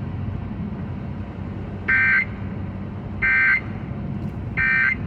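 Emergency Alert System end-of-message signal over the radio: three short bursts of screeching digital data tones, about a second and a half apart, marking the close of the alert. A steady low rumble of the car runs underneath.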